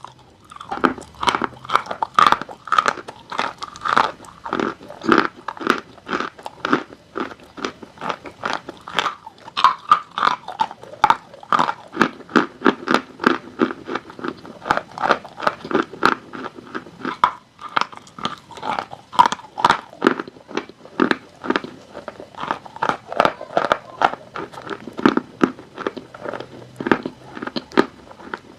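Close-up crunching of dry chalk being chewed: rapid, crisp crackles in a steady chewing rhythm, a few per second, with occasional sharper bites.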